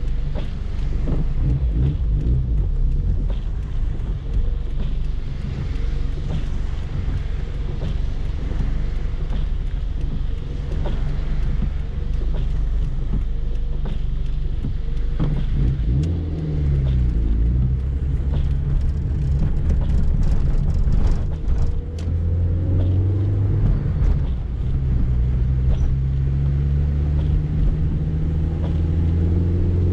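Peugeot 205 XS's 1.4-litre carburetted four-cylinder engine, heard from inside the cabin. It runs at low revs at first; its note dips and rises about halfway through, then climbs in steps through the gears as the car accelerates.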